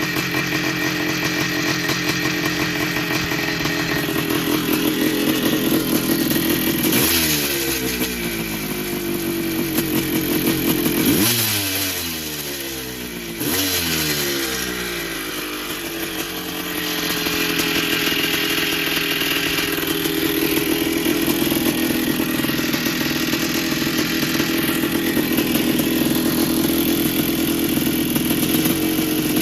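1982 Yamaha YZ490's single-cylinder two-stroke engine running just after firing on the first kick. It is blipped three times in the first half, the revs rising and falling back each time, then runs steadily. The freshly rebuilt bottom end with new bearings sounds a lot quieter than before the rebuild.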